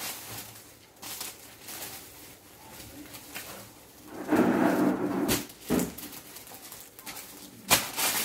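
Silk saree and clear plastic bag rustling and crinkling as the saree is folded and packed. A short, loud, low voice-like sound comes about halfway through, and a sharp knock near the end.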